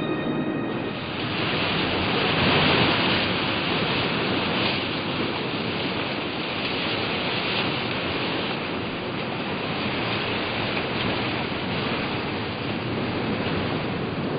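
Ocean surf washing onto a rocky beach, a steady rushing noise that swells for a few seconds just after the start and then holds level.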